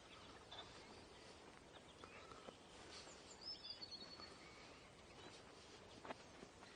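Near silence: faint outdoor ambience with a few faint, short bird calls around the middle.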